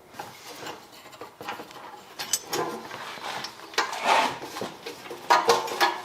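Hand tools clicking, scraping and clinking against metal in an engine bay as a stuck EGR fitting is worked at, with a couple of brief ringing metal clanks about two seconds in and again near the end.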